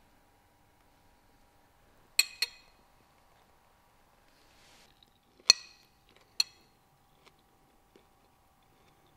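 Cutlery clinking on a dish: four sharp clinks, each ringing briefly, two in quick succession about two seconds in and two more about a second apart near five and a half seconds.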